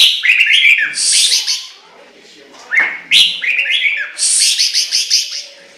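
Chinese hwamei singing: two loud phrases a few seconds apart, each a quick string of whistled, sweeping notes running into a harsher, buzzy series of notes.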